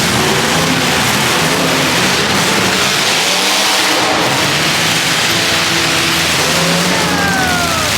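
Demolition derby car engines running and revving amid a loud, steady din, with a short falling tone near the end.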